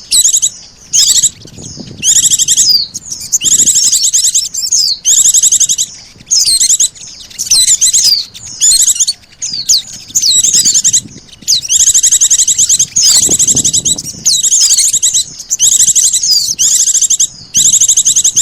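Recorded bird-lure call for white-eyes (pleci) mixed with sogon calls: high, rapid buzzy trills and quick sweeping whistles, repeating in short bursts with brief gaps between them.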